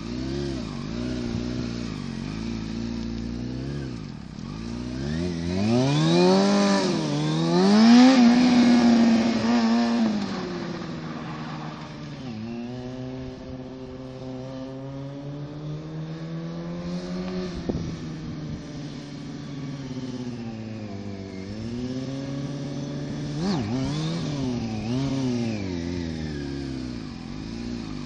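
Sport motorcycle engine revving up and down as the rider holds wheelies, its pitch rising and falling again and again. It is loudest about six to ten seconds in, where it climbs and holds a high pitch before dropping away. It then runs steadier and quieter before more rises and falls near the end.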